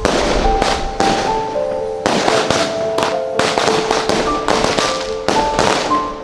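Firecrackers going off in a rapid, irregular string: about a dozen sharp bangs, roughly two a second, each with a short echo.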